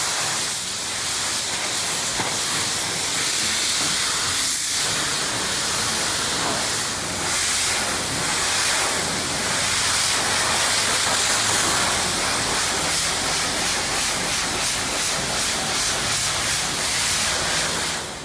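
High-pressure washer wand blasting water onto a convertible's soft top: a steady, loud hiss of the spray jet.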